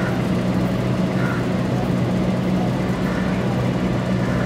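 A steady low mechanical hum, with faint voices in the background.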